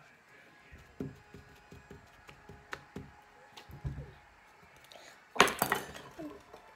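Light scattered taps and clicks of a wooden skewer and fingers against a paper plate and wooden tabletop, then a brief louder scrape a little after five seconds in as a wooden chair shifts when she gets up.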